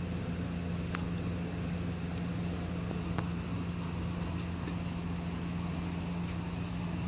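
A steady low mechanical hum, unchanging throughout, with a few faint clicks scattered through it.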